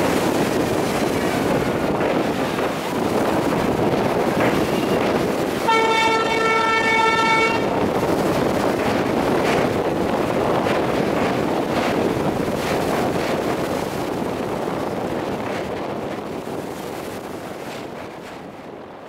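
Indian passenger train running, heard from an open carriage window: a steady rumble of the coaches on the rails. A diesel locomotive's horn sounds once, about six seconds in, for about two seconds. The rumble fades over the last few seconds.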